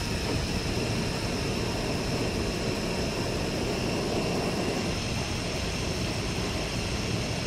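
Backpacking canister stove on an MSR fuel canister burning with a steady, even rush of gas flame.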